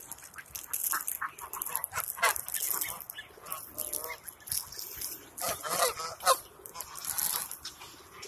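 Canada geese honking: many short calls from several birds, one after another and overlapping.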